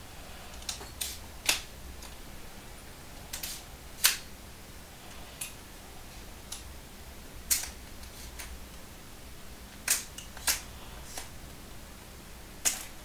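About ten sharp clicks, irregularly spaced, as the legs of a small telescoping travel tripod are collapsed, the ball-detent locks snapping as each leg section is pushed in and slides home.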